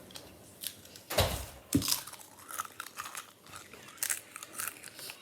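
Potato crisps being bitten and chewed: two loud crunching bites about a second in, then many quick crackly crunches as they are chewed.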